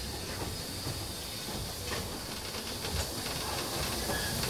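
Vale of Rheidol narrow-gauge steam locomotive working slowly: a steady hiss of steam with low beats of exhaust about once a second.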